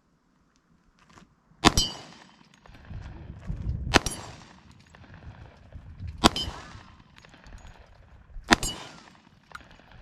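Four shots from a Glock 20 Gen 4 10mm pistol, fired at a slow, even pace about two seconds apart, each followed by a short ringing tail.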